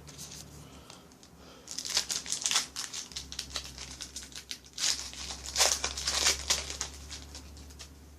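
Foil wrapper of a trading card pack crinkling and tearing open by hand, in two crackling bursts, about two seconds in and again around five seconds in.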